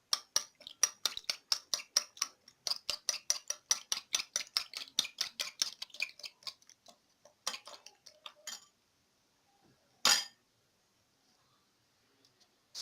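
Spoon clinking against the side of a container while stirring: a fast, even run of about six clinks a second for some six seconds. A few scattered clinks follow, then one sharper knock near the end.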